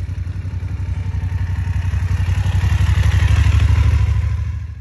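Adventure motorcycle engine running at low revs, a steady throbbing exhaust note that grows louder over the first three seconds or so, then eases off and stops abruptly at the end.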